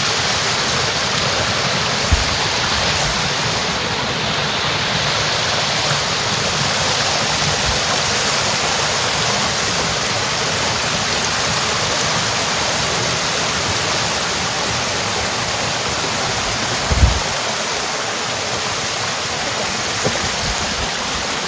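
Steady rush of running water, like a stream or small waterfall, with a low thump about two seconds in and a stronger one near the end.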